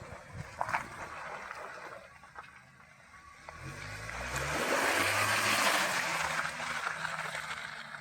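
BAIC BJ40's 2.0-litre engine revving up as the 4x4 pushes through rough off-road ground, under a loud rushing, swishing noise that peaks a little after halfway. There are a few knocks in the first second.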